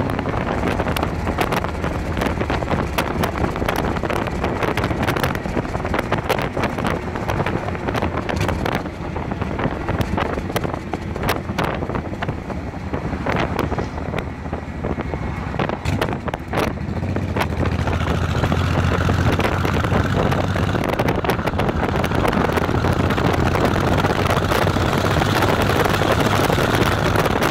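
Cruiser motorcycle riding at road speed, its engine and tyre noise mixed with wind buffeting the microphone in frequent gusts. About two-thirds of the way through, the noise turns louder and steadier, with a faint high whine over it.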